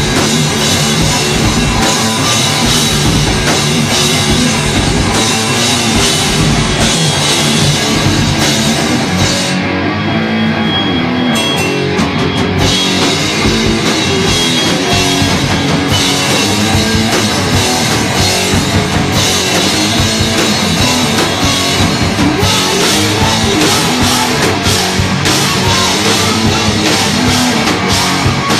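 Live rock band playing loud heavy rock on a drum kit and electric guitars. About ten seconds in, the top end briefly thins for a few seconds before the full band sound returns.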